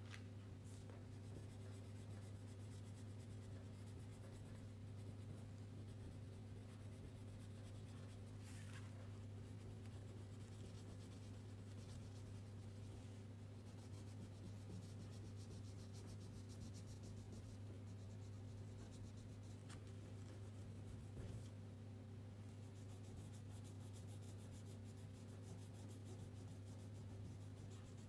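Wax crayon scratching faintly on paper as a coloring page is coloured in, with a few light knocks, over a steady low hum.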